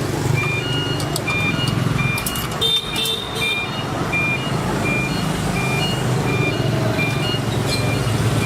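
Vacuum pump running steadily with a low, rough hum while it evacuates a refrigerator's sealed refrigerant system. Over it comes an evenly spaced pattern of short high beeps alternating between two pitches, with a few clicks about two to three and a half seconds in.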